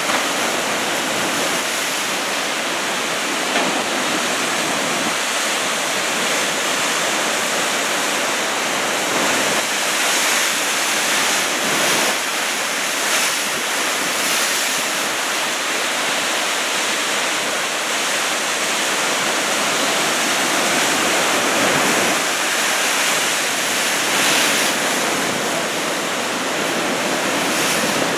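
Heavy typhoon surf breaking, a steady rushing noise of waves that swells a little now and then, with wind on the microphone.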